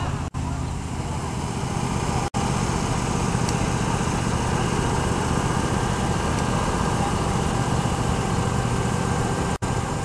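Steady outdoor background noise, mostly a low rumble, with faint voices of people; the sound cuts out for an instant three times.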